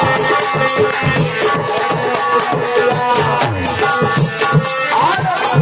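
Indian devotional folk music: a hand drum with pitch-bending bass strokes, a shaker or rattle keeping a quick steady rhythm, and held melody notes over them.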